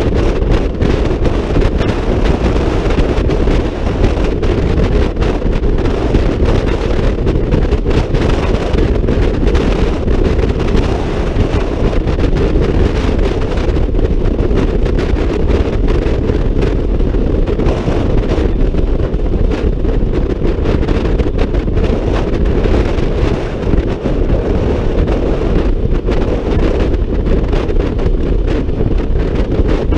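Wind buffeting the microphone of a Honda ADV 150 scooter at riding speed, a loud, steady low rumble with the scooter's running and road noise underneath.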